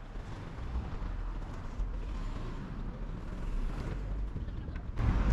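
City street ambience: a steady low rumble of road traffic, which jumps louder about five seconds in.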